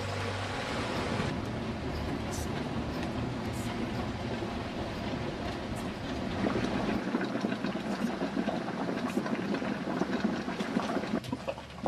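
Volcanic fumarole venting steam with a steady rushing hiss. From about seven seconds in, a boiling mud pot takes over with an uneven, choppy bubbling and plopping.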